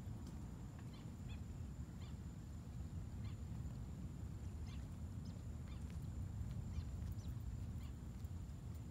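Faint outdoor night ambience: a low steady rumble with short high calls scattered irregularly throughout and a thin steady high whine.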